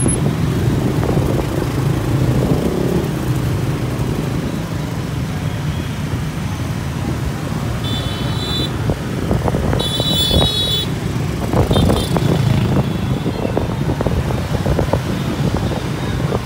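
Dense scooter and motorbike traffic heard from a moving motorbike: a steady mix of small engines and road noise. Short high-pitched horn beeps sound about halfway through, a longer one a couple of seconds later, and a brief one after that.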